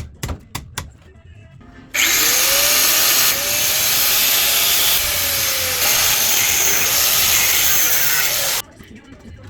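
A power tool runs loudly for about six and a half seconds, starting about two seconds in and cutting off abruptly, after a few quick clicks at the start.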